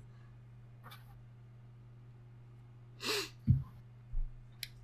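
Steady low electrical hum on a voice-chat microphone line, with one short, breathy vocal burst from a person about three seconds in, followed by two low thumps.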